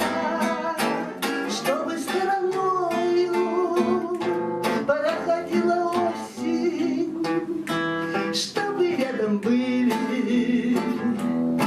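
Acoustic guitar strumming a song accompaniment, with a voice singing the melody; near the end a woman sings the word "были".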